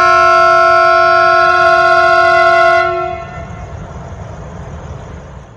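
Locomotive horn sounding one loud, steady blast that stops about three seconds in, followed by a low rumble that cuts off abruptly near the end.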